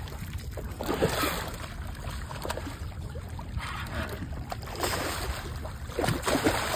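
Water splashing and sloshing beside a boat as a released red drum swims off at the surface, over a steady low rumble. The splashes grow louder and more frequent near the end.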